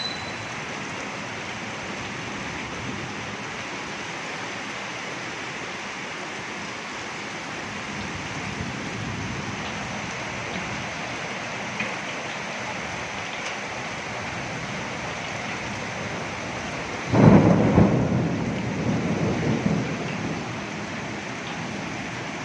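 Steady rain, with a sudden thunderclap a little after halfway that rumbles on for a few seconds before fading back under the rain.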